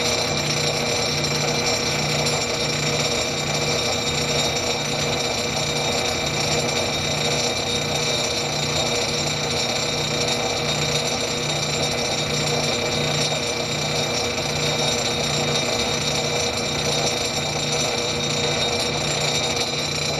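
South Bend Model A lathe running under power while its cutting tool takes a final facing pass across a steel nut: a steady machine hum and whine with a regular low pulse.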